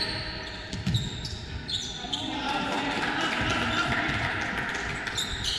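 Basketball game sounds in a gym: the ball bouncing on the court, short sneaker squeaks on the floor, and players' voices echoing in the hall.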